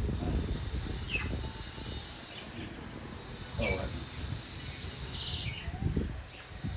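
A few short bird chirps, each a quick falling note, over low background rumble.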